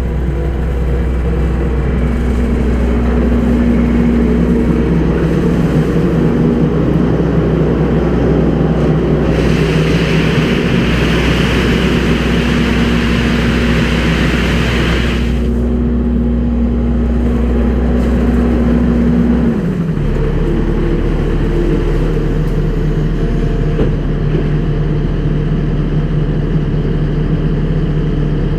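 Kubota skid steer's diesel engine running steadily while spreading gravel. A rushing hiss joins it for about six seconds in the middle, and the engine note drops a little about two-thirds through.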